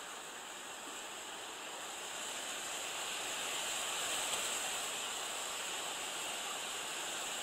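Steady, even outdoor ambient hiss with no distinct events, growing a little louder about two seconds in.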